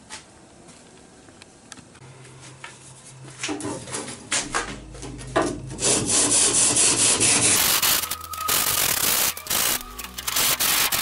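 Hand saw cutting and scraping through cured expanded polyurethane foam, in rough rasping strokes. The strokes start faint a few seconds in and become loud and steady over the second half.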